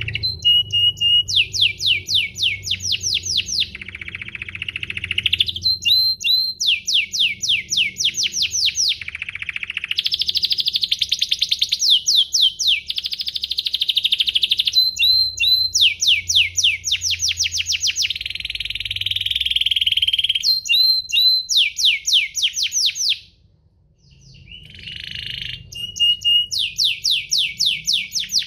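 Domestic canary singing a long song made of fast trills: runs of many quick identical notes, the note type changing from one run to the next, with a brief break about four-fifths of the way through.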